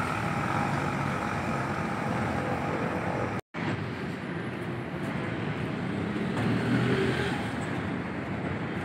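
Steady hum of road traffic, broken by a short dropout to silence about three and a half seconds in.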